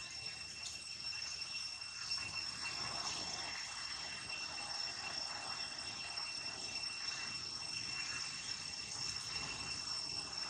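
Steady high-pitched insect chorus: two unbroken droning tones over faint background noise.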